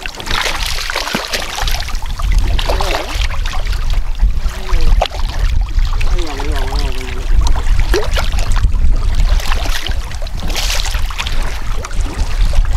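Choppy river water slapping and splashing against the side of a small fishing boat, over a steady low rumble.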